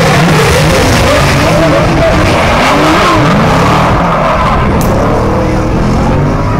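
Two drift cars on a tandem run, their engines revving hard with pitch rising and falling as the drivers work the throttle, and tyres skidding and squealing as the cars slide away.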